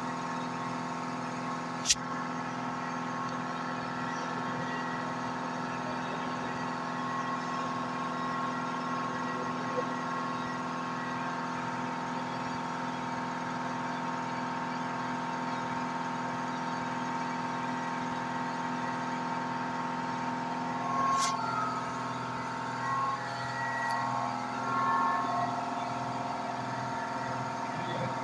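Blue diode laser engraver running an engraving job: a steady mix of whining tones from its gantry stepper motors and the laser head's cooling fan. There is a sharp click about two seconds in and another about twenty-one seconds in; after the second click the tones shift and swell several times as the head moves.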